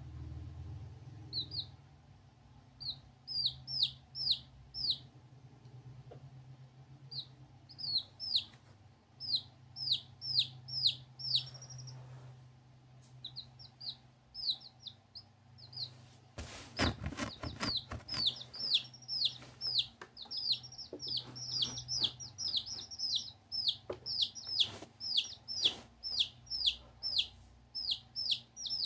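Baby chicks peeping: many short, high, downward-falling peeps in quick runs. About two-thirds of the way through there is a brief cluster of knocks.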